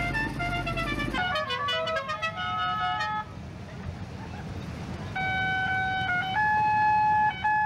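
A tune played in clear, horn-like notes that step up and down in pitch, quick short notes at first and long held ones near the end, typical of a musical car horn. A low engine rumble runs under it for the first second.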